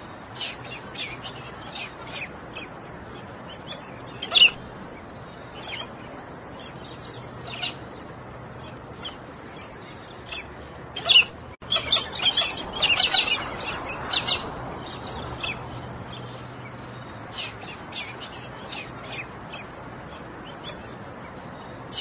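Birds chirping: short, sharp calls at irregular intervals, with a loud pair of calls about four seconds in and a denser run of calls about halfway through, over a faint steady low hum.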